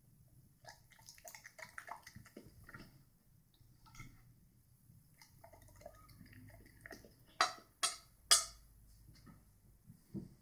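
Metal fork and knife clicking and scraping on a ceramic dinner plate: soft scattered clinks at first, then three sharp clinks about half a second apart late on.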